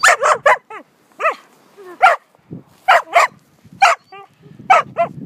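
Australian shepherd puppy barking: about a dozen short, high-pitched barks in quick irregular runs, several sliding down in pitch.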